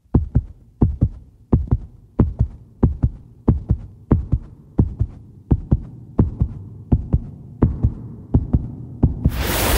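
Heartbeat sound effect: paired low thumps, lub-dub, about one and a half beats a second, ending in a loud rising whoosh near the end.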